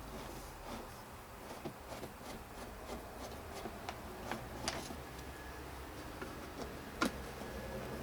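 Faint scattered clicks and light ticks of hand tools and plastic parts being handled while a plastic HVAC heater box housing is taken apart. Sharper clicks come about 4.5 seconds in and again about 7 seconds in.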